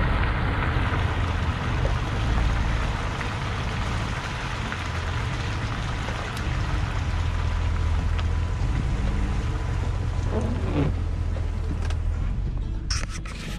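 A dump truck running with a low engine rumble and a steady rushing noise, with a faint steady whine through the first half. Near the end the noise drops away and there are a couple of clicks.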